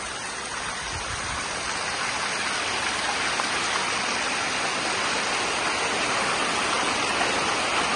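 Fast-flowing floodwater rushing, a steady, dense noise that slowly grows louder.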